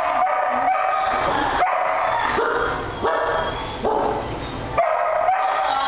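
Dogs whining and yipping: a run of drawn-out, high-pitched cries, one after another.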